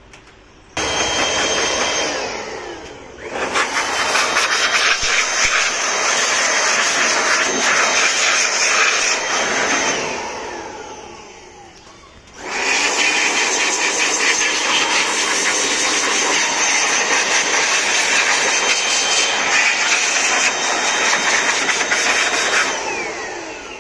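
Hand-held electric air blower running at full speed, blowing dust out of an open power amplifier's chassis. It cuts out about ten seconds in and spins down with a falling whine, starts up again a couple of seconds later, and winds down again near the end.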